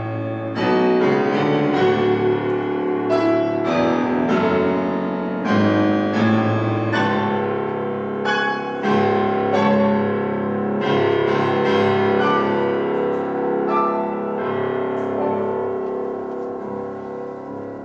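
Orchestral music led by piano: a run of struck notes and chords ringing over sustained lower tones, growing quieter over the last few seconds.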